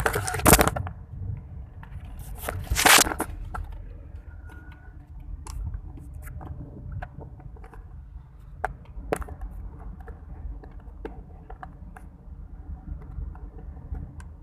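Handling noise from a phone being fumbled and repositioned: two loud scraping rubs on the microphone in the first three seconds, then scattered light clicks and taps. Under it runs the low, steady rumble of the car's cabin.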